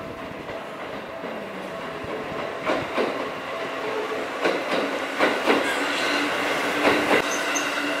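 Yellow Seibu electric commuter train running past, its wheels clacking over the rail joints in pairs of clacks over a steady rumble.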